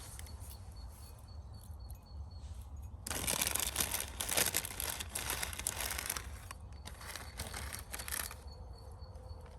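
Rustling, crinkling noise in two stretches: about three seconds long, then a pause, then about a second and a half more.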